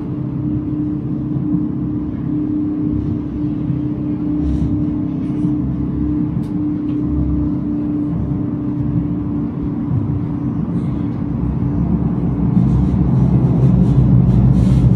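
Running noise heard inside a moving tram: a steady low rumble with a steady hum over it, growing louder about two-thirds of the way through.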